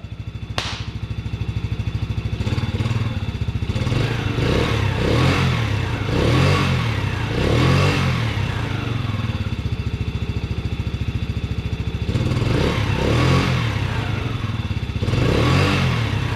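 Can-Am ATV engine running steadily, with a string of short throttle blips where the revs rise and fall about once a second, in two bursts. It is running again after water was drained from it and its carburetor cleaned.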